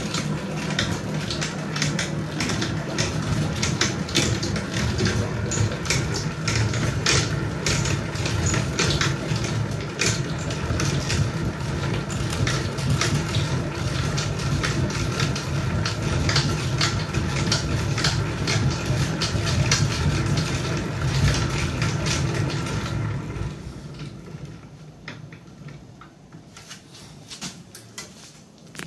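Hand-cranked stainless steel honey extractor spinning a load of honey frames: the crank's gears click rapidly over a steady rumble of the drum. About three-quarters of the way through, the cranking stops and the sound dies away as the spinning slows.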